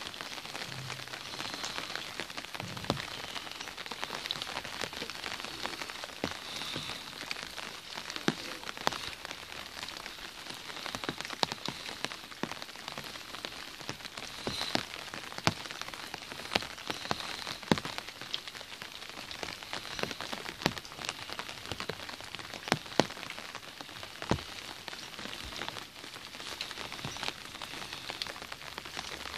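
Steady rain pattering on an umbrella held overhead, with many louder single drops striking it sharply at irregular moments.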